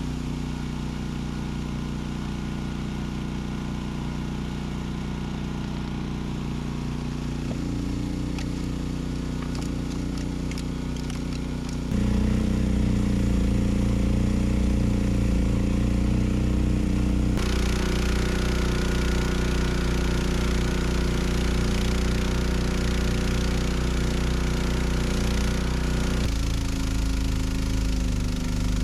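Honda HSM1380i hybrid snowblower's engine running steadily. It gets louder about twelve seconds in, and a rushing hiss joins a few seconds later.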